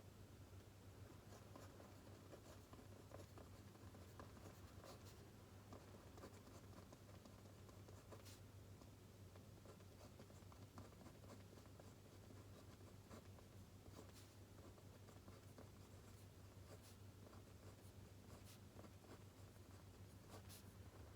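Faint writing on paper, soft scratching with scattered light ticks, over a steady low hum.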